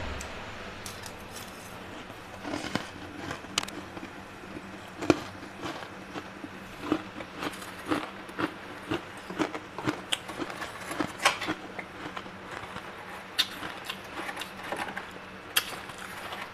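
Metal spoon scraping and chipping built-up frost in a freezer compartment: an irregular run of crunchy scrapes and crackles, several a second, starting about two and a half seconds in.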